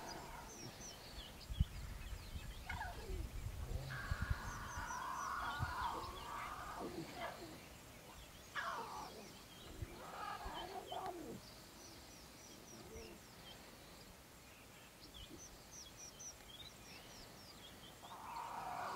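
Small birds chirping repeatedly in the bush, with a few short falling calls from lion cubs jostling to suckle.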